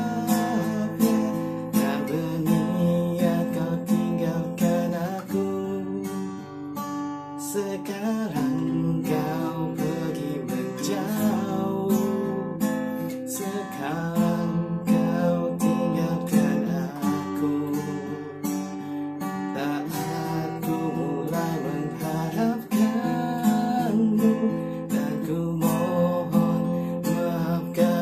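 Steel-string acoustic guitar strummed in a steady rhythm, chords changing every second or two, picked up by a smartphone's built-in microphone.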